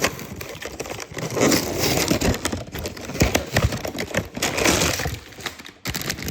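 Toy box packaging being torn open and crumpled by hand: a dense run of crackling, rustling and tearing, loudest through the middle.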